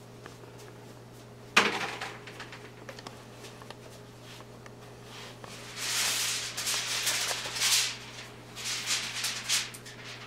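A single sharp knock about a second and a half in, then bursts of crinkling and rustling from about six seconds on as crinkly material is handled. A steady low hum sits underneath.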